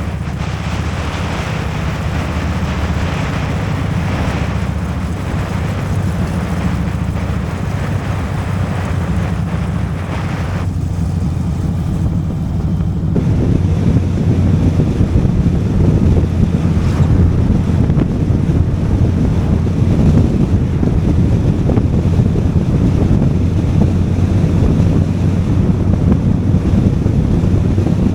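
Motorcycle engine running at road speed under heavy wind rush on the microphone. About halfway through the wind noise grows louder and thicker.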